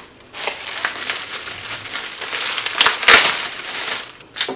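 Packaging crinkling and rustling as the black ink bottle's wrapping is handled and opened by hand, loudest about three seconds in, with a short extra rustle near the end.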